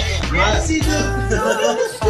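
Background music with a vocal over a heavy bass line; the bass drops out briefly near the end.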